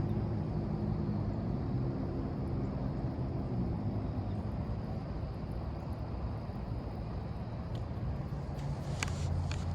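Low, steady drone of a distant engine, its pitch shifting slightly in the first few seconds, with a few faint clicks near the end.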